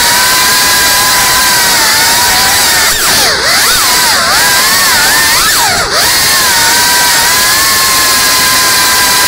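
Small FPV cinewhoop drone's brushless motors and ducted propellers whining in flight, several pitches at once. The pitch holds steady, then swoops down and back up a few times between about three and six seconds in as the throttle is varied.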